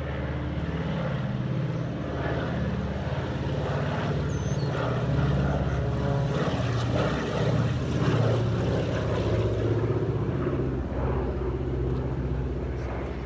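Douglas DC-3's twin radial piston engines and propellers running as the airliner passes low overhead, growing louder to a peak about eight seconds in and then fading.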